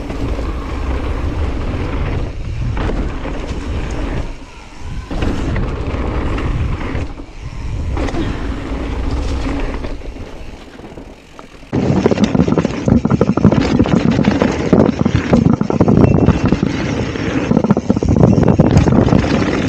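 Wind rushing over an action camera's microphone as a mountain bike rolls down a dirt trail. About twelve seconds in, the sound cuts to a louder stretch of rattling and clattering from tyres and bike over rough ground.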